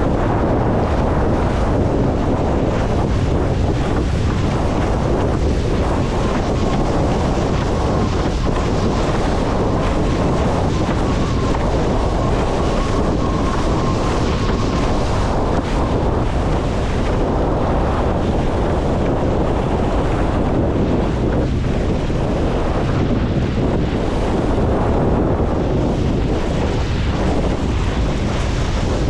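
Steady wind buffeting the microphone over water rushing and splashing past a Windsurfer LT board sailing at speed in a gusty breeze.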